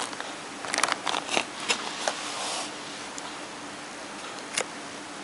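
Handling noise of packaging: a few short crinkles and clicks over the first couple of seconds, then a steady hiss with a faint hum and one more click near the end.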